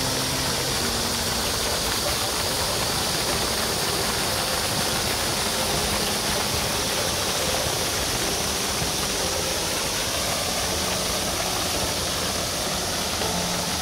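Garden fountain water spraying and falling into its pool: a steady, even hiss of splashing water.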